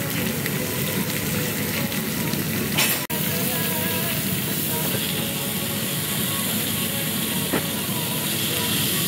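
Thin beef steaks sizzling steadily in oil in a grill pan while they are turned over with a utensil. There is a short louder burst about three seconds in and a single click a little after seven seconds.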